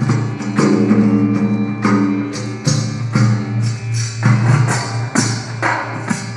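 Tabla played in fast, uneven runs of strokes imitating galloping horse hooves, the deep bass drum humming underneath and the treble drum ringing with a clear pitch.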